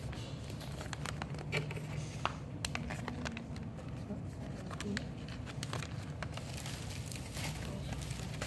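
Packaging being handled: crinkling and rustling with many small scattered clicks and taps, over a steady low hum.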